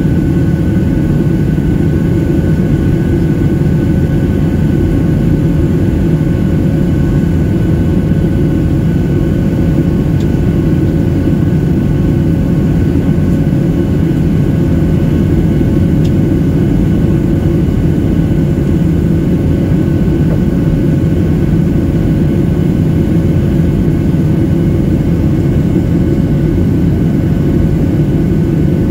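Steady cabin roar of a Boeing 737-800 in flight, heard from a window seat over the wing: its CFM56-7B jet engines and the airflow make a dense low rumble, with a few faint steady whining tones above it.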